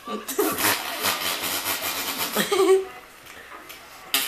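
Labrador–pit bull mix puppy licking a person's face: quick, wet, rapidly repeated licks. A short voiced sound from the person comes about two and a half seconds in.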